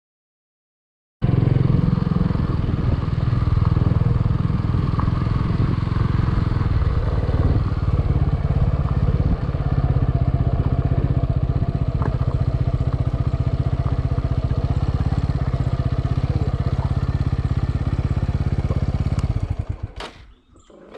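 A vehicle's engine running steadily while travelling along a road. It starts suddenly about a second in and falls away shortly before the end.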